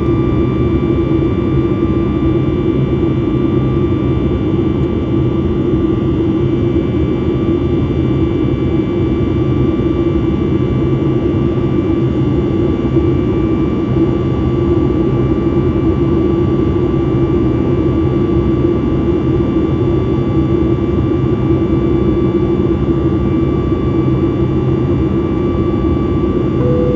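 Cabin noise of a Boeing 737 MAX 8 in flight: the steady drone of its CFM LEAP-1B engines and airflow, with a thin, steady high whine over it.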